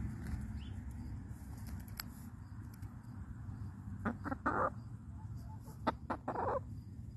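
Chickens clucking: a few short clucks in two groups, about four and six seconds in, over a low steady rumble.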